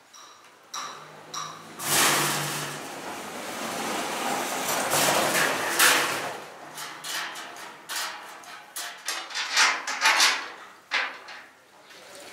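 Knocks and metallic clattering from a perforated steel tumbling drum as tennis balls are loaded into it and its hatch is handled. The biggest clatter comes about two seconds in, with a run of sharp knocks later on.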